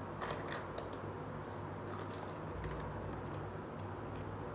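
Light plastic clicks and taps from small plastic miniature doll chairs being picked up and handled, in irregular clusters over a steady low hum.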